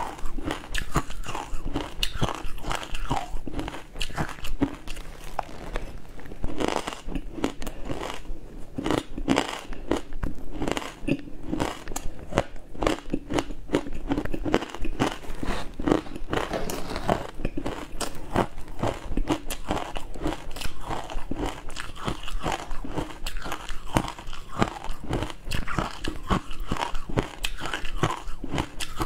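Close-miked chewing of frozen matcha ice: a dense, continuous run of crisp crunches as the ice is bitten and broken up in the mouth.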